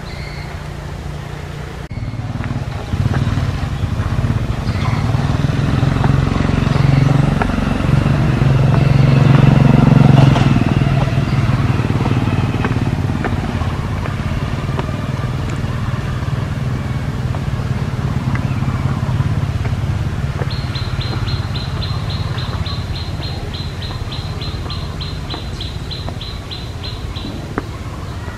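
A motor vehicle engine running, growing louder to its loudest about ten seconds in, then slowly fading. Near the end, a rapid run of high, evenly spaced chirps.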